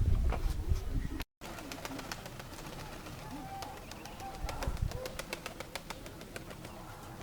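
Domestic pigeons cooing softly, with many quick clicks and taps. Wind rumbles on the microphone during the first second, then the sound cuts out for a moment.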